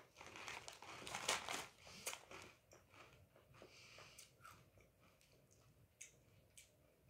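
A crinkly plastic chip bag rustling and crunchy nacho corn chips being bitten and chewed, the crunching dense for the first two seconds or so, then thinning to faint, scattered crunches.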